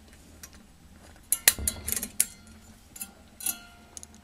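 Sharp metal clicks and clinks of a steel coil spring and pliers against the cast truck frame of a 1/8-scale railroad freight car truck as the spring is worked into its pocket. There is a quick run of clicks about a second and a half in, then two more near the end, the last with a brief metallic ring.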